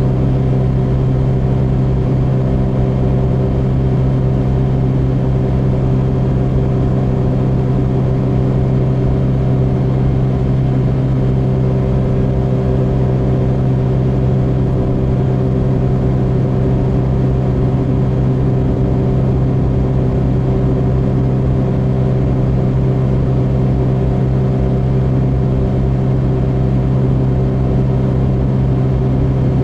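Car cabin noise at a steady highway cruise: a constant drone of engine and tyres with a strong low hum, unchanging throughout.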